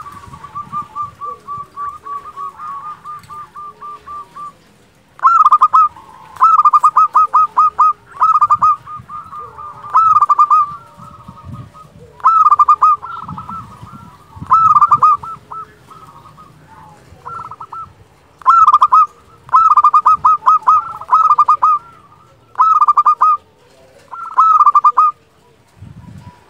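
Zebra dove (perkutut) cooing in its clear, flute-like voice. It starts with a softer, quick run of even notes, then from about five seconds in gives loud, short bursts of rapid staccato coos, repeated every second or two.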